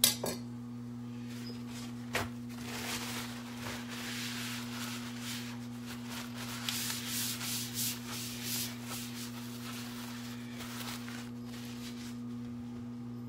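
Hands handling flour tortillas on a plastic cutting board: uneven rubbing and rustling for several seconds, with a sharp knock at the start and another about two seconds in. A steady low electrical hum runs underneath.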